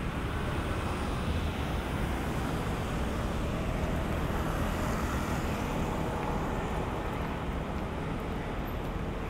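Steady city road traffic at an intersection: cars and a motor scooter driving past, with a continuous traffic hum and no sharp sounds.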